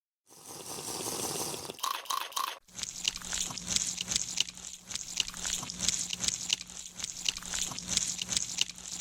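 Edited liquid sound effects: a hiss with three short tones near two seconds, then a dense crackling, bubbling texture over a low steady hum.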